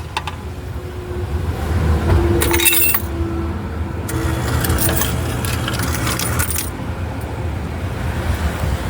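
Loose coins jingling and clinking in a hand, in two bursts a little over a second apart, over a steady low hum.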